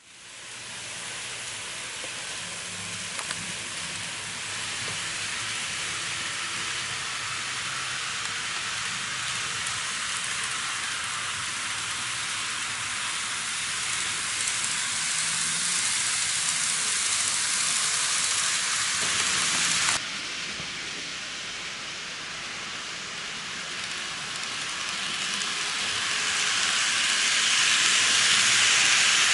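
N-gauge model trains, Kintetsu 8600 series and JR 201 series models, running on the layout's track: a steady high rushing of wheels on rails with a faint motor hum. It changes suddenly about two-thirds of the way through and grows loudest near the end as the 201 series passes close by.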